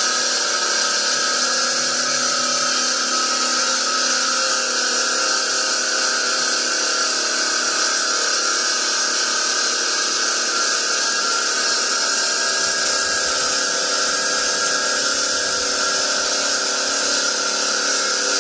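A Raimondi Zoe 150 bridge saw cutting through a slab with a new CLFM turbo diamond blade: a steady, high-pitched grinding whine over a hiss, holding level through the whole cut.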